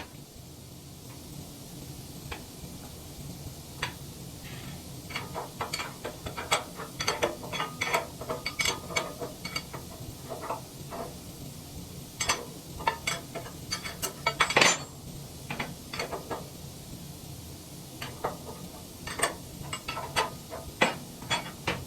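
Irregular metallic clicks, taps and clinks of hand tools working on the steel anvil and its mounting of a wood chipper, with one louder knock about fourteen seconds in, over a steady low hum.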